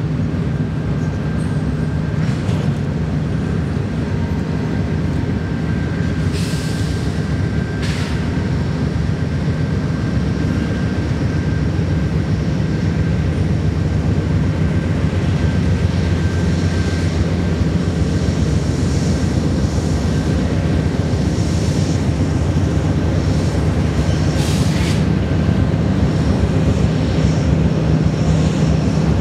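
Freight train of double-stack container cars rolling past, a steady rumble of steel wheels on rail with a few sharp clanks. Near the end the low drone of Norfolk Southern diesel locomotives comes in and grows louder.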